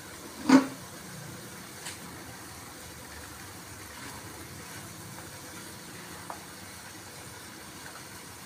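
A spatula stirring chicken and vegetables in an aluminium wok, over a steady low cooking rumble. A sharp knock comes about half a second in, with lighter taps later.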